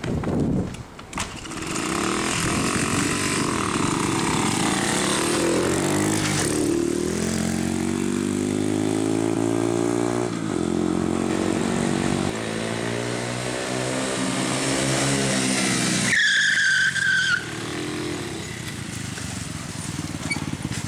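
Mini motorcycle engines running and revving, their pitch rising and falling as the bikes ride off. Near the end the sound cuts abruptly to a brief high squeal, then quieter engine running.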